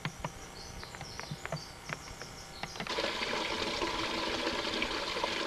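Scattered light clicks and faint high chirps in forest quiet. About three seconds in, a steady trickle of running water begins and continues.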